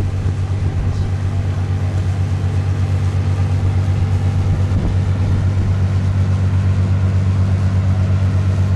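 Engine of the Tahoe Queen paddlewheel boat running steadily: a deep, loud hum with a fast, even pulse.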